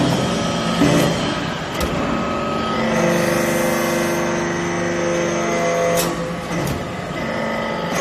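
Hydraulic metal-chip briquetting press running as its ram comes down and compresses the chips in the hopper: a steady hydraulic pump hum and whine that grows stronger about three seconds in. A sharp clack comes about six seconds in.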